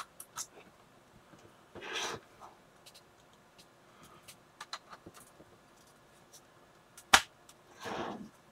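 Hands handling a Mercedes W447 instrument cluster's circuit board, plastic dial face and wiring connector: scattered light clicks and two short swishes, with one sharp snap a little after seven seconds, the loudest sound.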